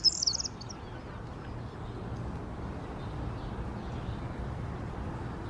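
A small bird's high trilling song cuts off about half a second in. After that there is only a steady low outdoor rumble.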